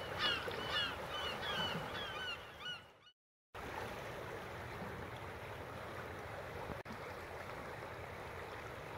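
Gulls calling, many short cries in quick succession, stopping about three seconds in. After a brief silence, a steady rush of flowing river water.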